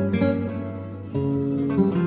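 Background music: a flamenco-style acoustic guitar playing plucked notes and strummed chords, with a new chord struck about a second in.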